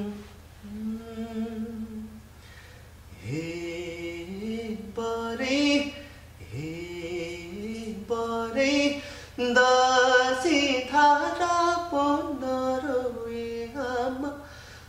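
A man singing solo without accompaniment: the slow opening of an old Nepali Gandharva folk song, in long sliding notes. It starts softly and grows much louder about nine seconds in.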